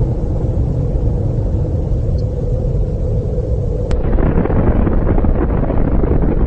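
Loud, deep, steady rumble of a nuclear explosion. About four seconds in it changes to a rougher rumble with more crackle.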